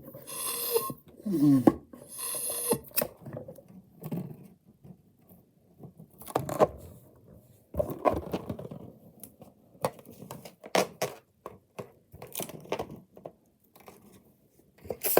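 Handling noises of parts being worked by hand: irregular knocks, clicks and scrapes, with a few short squeaks and hissing rasps in the first couple of seconds.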